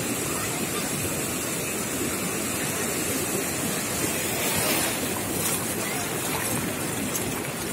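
Sea surf breaking and foamy water washing over the shallows, a steady rush that swells briefly about four and a half seconds in.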